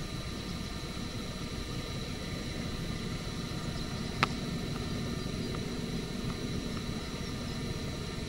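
Car running, a steady low rumble, with one sharp click about four seconds in.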